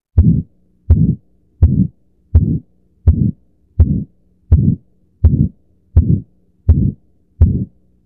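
Heart sounds through a stethoscope at the aortic area, carrying the murmur of aortic stenosis: a regular heartbeat of about eleven beats in eight seconds, each beat a short burst.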